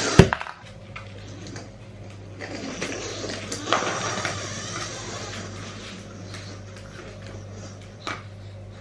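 Hard clicks and knocks as a pug paws and noses at a Sphero BB-8 toy droid on a hard floor. The loudest knock comes just after the start, another about four seconds in and a smaller one near the end, over a steady low hum.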